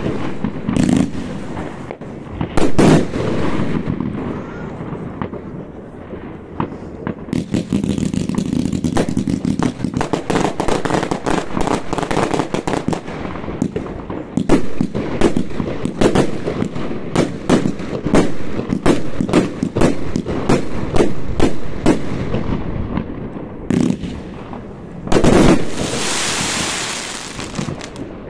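New Year's Eve fireworks going off: a few separate bangs, then a dense run of rapid cracks for about a quarter of a minute. Near the end a loud bang is followed by a couple of seconds of hissing crackle.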